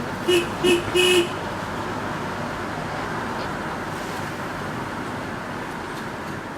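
A vehicle horn sounding three short toots, the last one slightly longer, over the steady noise of a vehicle on the road.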